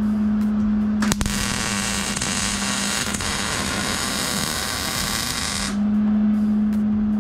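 Electric arc welding on a go-kart exhaust pipe: a click about a second in, then a steady crackling hiss of the arc for about four and a half seconds before it stops. A steady low hum runs underneath and is fainter while the arc burns.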